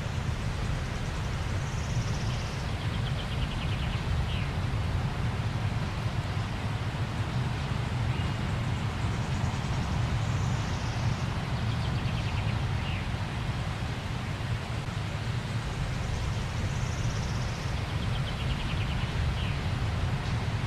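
Waterfall: steady rushing water with a deep rumble underneath. Faint high chirps come three times, about seven or eight seconds apart.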